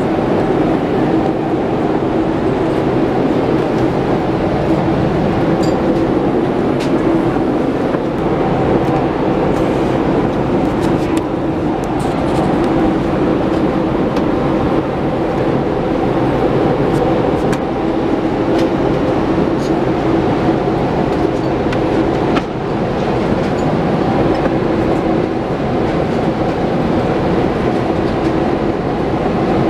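Steady cabin noise of a Boeing 787-8 airliner in flight: a constant rush of engine and airflow noise with a low, even hum, and a few faint clicks.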